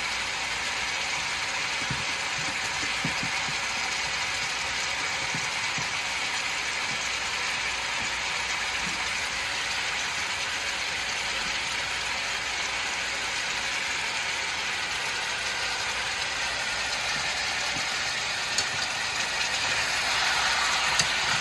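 Turkey necks sizzling steadily as they sear in hot oil in a large pan over a high burner, with a couple of sharp clicks of the spatula near the end.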